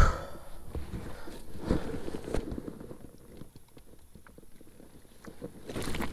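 Knocks, clicks and rattles from a freshly caught largemouth bass being handled in a rubber landing net on a kayak. They are busiest in the first few seconds, go quiet for a while, and end with a short rustle.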